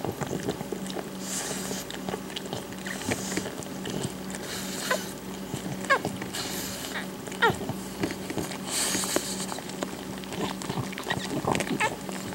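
Newborn pug puppies giving short, thin, falling squeaks while nursing, with wet licking and rustling as the mother pug licks them. A steady low hum runs underneath.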